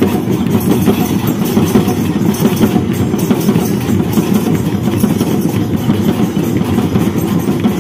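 Loud music with steady drumming, dense and continuous, with no clear tune standing out.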